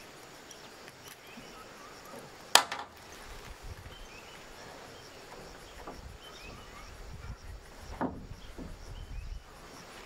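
Knocks from work on a corrugated roof: one loud sharp knock about two and a half seconds in, another about eight seconds in, and softer knocks and bumps in between. Faint chirping goes on behind.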